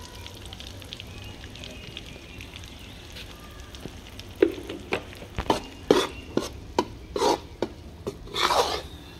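Gram flour (besan) frying in ghee in a kadhai with a faint steady sizzle, then from about four seconds in a spatula scraping and knocking against the kadhai in a string of sharp strokes as the flour is stirred and roasted.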